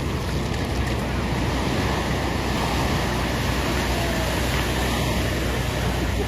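Steady rushing storm noise, wind and water, with a low rumble.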